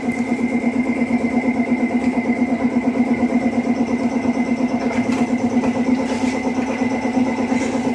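Machinery running steadily: a low hum that pulses rapidly and evenly, with a faint steady high whine over it.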